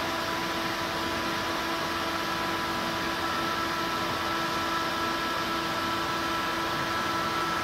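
Steady machine hum and hiss, like a running fan, with a few faint steady tones in it.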